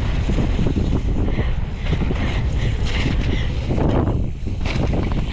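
Wind buffeting the camera microphone over the rumble and rattle of a mountain bike rolling fast down a dirt trail, with many small knocks as the tyres hit bumps.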